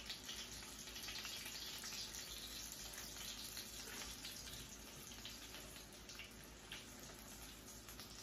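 Oil sizzling steadily around rolled potato tacos frying in a pan, a faint even hiss with scattered small crackles and pops.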